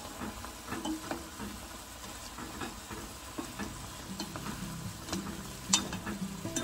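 Food sizzling in a pan while being stirred, with light clicks of the utensil against the pan and one sharp clink near the end.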